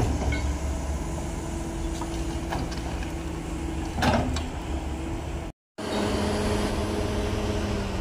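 Hydraulic excavator's diesel engine running steadily, with a short metallic clank about four seconds in. The sound cuts out completely for a moment just past the middle.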